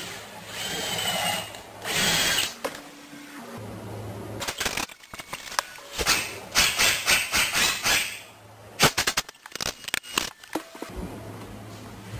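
DeWalt cordless drill running in short bursts, pre-drilling and driving long screws into wooden baseboard trim, with runs of sharp clicks in between.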